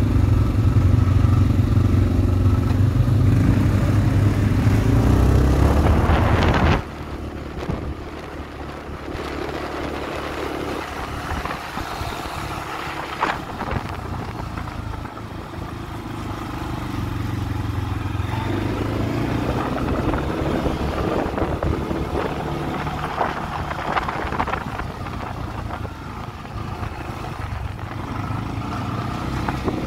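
CFMoto CForce ATV engines running on a trail ride: loud and steady for the first seven seconds, then cutting suddenly to a quieter engine with more rattle and noise, which grows louder again about eighteen seconds in.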